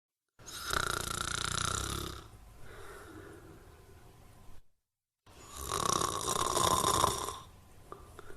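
A person snoring: two long snores about five seconds apart, each followed by a quieter breath, with a brief dead silence between them.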